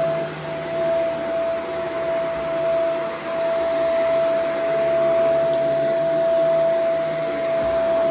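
Shark Vertex AZ2002 powered lift-away upright vacuum running over carpet: a steady high motor whine over the rush of suction, rising and falling slightly in loudness as it is pushed along.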